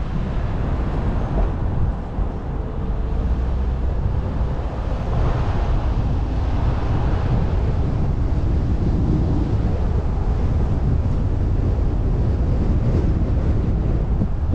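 A moving car's steady low road rumble with wind noise on the microphone, swelling briefly about five seconds in.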